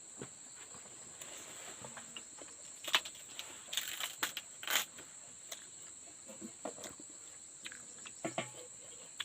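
Insects chirring in a steady high-pitched drone, with scattered clicks and rustles from plants being handled, two sharper snaps about three and four and a half seconds in.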